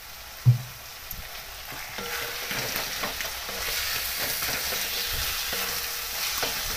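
Wooden spatula stirring and scraping a thick eggplant bharit with fried Bombay duck around a metal kadhai, the mix sizzling in the hot pan as salt is worked in. A short dull knock comes about half a second in, and the stirring and sizzle grow louder from about two seconds in.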